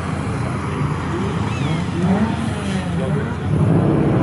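Car engine and exhaust accelerating hard, the pitch climbing twice as it pulls away through the gears, loudest near the end.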